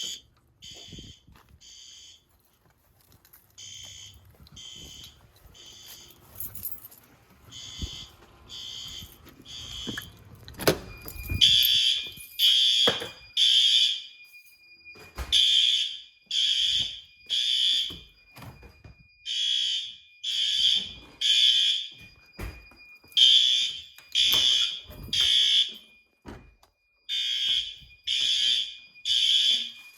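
Fire alarm horns sounding the temporal-three evacuation pattern, three blasts and a pause repeating about every four seconds, the building in alarm from a smoke detector test. Faint at first; after a clunk about eleven seconds in they are much louder, with a steady high tone running underneath.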